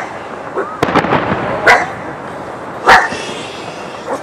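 Aerial fireworks bursting overhead: three sharp bangs, a little over a second apart, the loudest about three seconds in.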